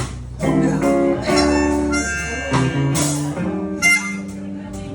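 Live blues band playing an instrumental fill between vocal lines: blues harmonica phrases with bent notes over electric guitar, upright bass and drums.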